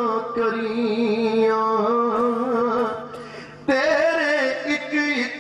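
A man singing Punjabi verse in long, drawn-out notes that waver in pitch. The voice falls away briefly about three seconds in, then comes back strongly on a new held note.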